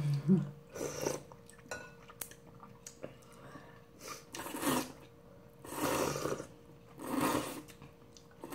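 Instant ramen noodles being slurped from a bowl: several separate slurps, each about half a second long, most of them in the second half.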